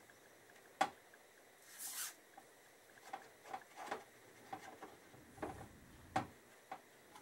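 Motorcycle fork leg being worked up into the yoke clamps by hand: scattered sharp metallic knocks and clicks, with a short scraping rub about two seconds in. The clamps are a tight fit from paint on their insides.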